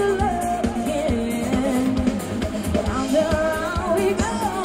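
Live band playing a pop song: a singer's voice carries the melody over a steady drum beat.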